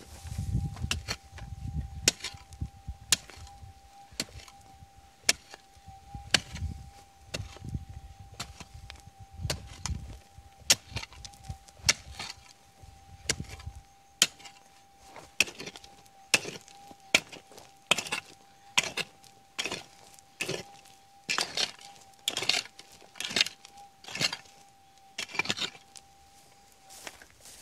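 A prospecting pick striking hard, dry, stony ground again and again as a hole is dug over a detector target, about one sharp strike a second, coming in quicker clusters in the second half. A faint steady tone from the metal detector's threshold sounds underneath.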